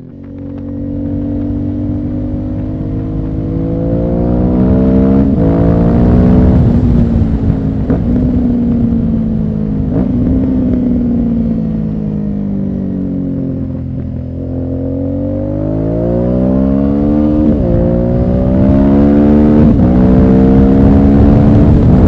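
Aprilia Dorsoduro 900's 90-degree V-twin through Dominator HP1 twin underseat mufflers, accelerating hard through the gears: the revs climb and drop sharply at each quick upshift. Near the middle it eases off and the revs fall, then it pulls through two more upshifts.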